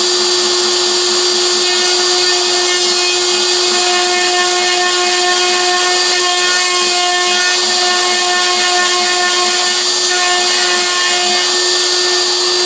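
Shapeoko CNC router's spindle running steadily as its bit cuts into an acrylic sheet, a constant whine over the cutting noise.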